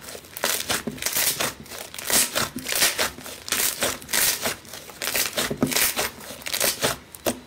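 Crunchy slime with a crusty surface being squeezed and kneaded by hand, crackling and crinkling in uneven bursts, several a second, as the hands press it.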